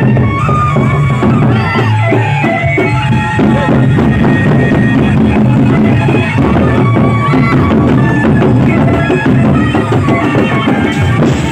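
Gendang beleq ensemble playing: large Sasak barrel drums beaten in a dense, driving rhythm, with sustained high pitched tones above the drumming.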